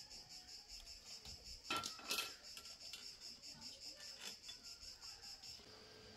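An insect chirping outdoors in a fast, even, high-pitched pulse that stops shortly before the end. A brief louder scrape or clatter comes about two seconds in.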